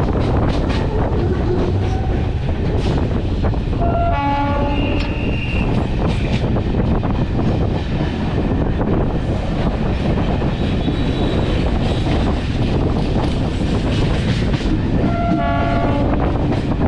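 A train running along the track with a steady rumble and wheel clatter; its horn sounds twice, about four seconds in and again near the end, each blast about a second long.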